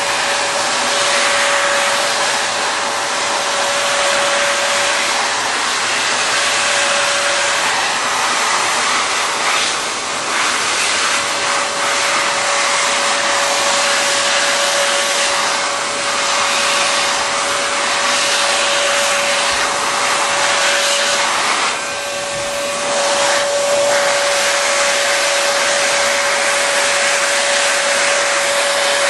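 Electric heat gun blowing hot air to shrink wrap-around heat shrink tubing onto a cable bundle: a steady rushing hiss with a steady whine from its fan motor. The sound dips briefly twice, about a third of the way in and again about three quarters in.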